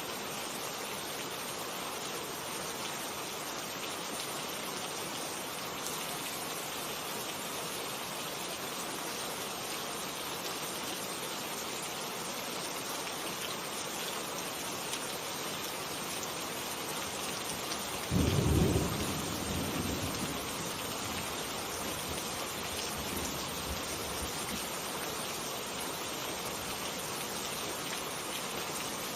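Steady heavy rain falling, with a single sharp clap of thunder about two-thirds of the way through that rumbles away over a couple of seconds.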